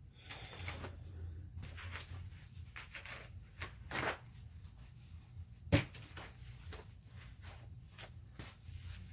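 Light handling sounds: scattered taps and rustles, with one sharp click a little past halfway.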